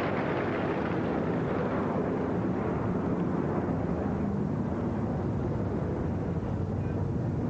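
Stadium crowd noise, a steady murmur and rumble from the audience between points; its higher hiss fades over the first few seconds, leaving a low rumble.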